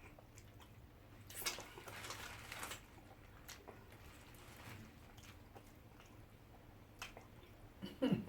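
Quiet eating sounds of mashed beans and bread being eaten: soft chewing, with a rustle about a second and a half in and a few light clicks.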